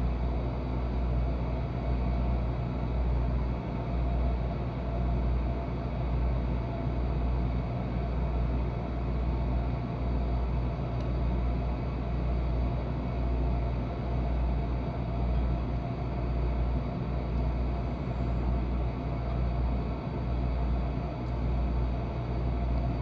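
A steady low rumbling hum with an even hiss over it.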